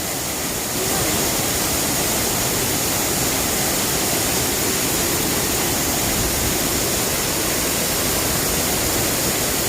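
Steady rushing of a large man-made waterfall, the water falling continuously, growing a little louder about a second in.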